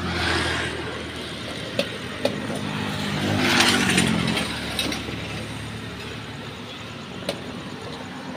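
Motor vehicles passing on the road, their engine and road noise swelling to a peak about three and a half to four seconds in and then easing off. There are three short sharp clicks, two close together about two seconds in and one near the end.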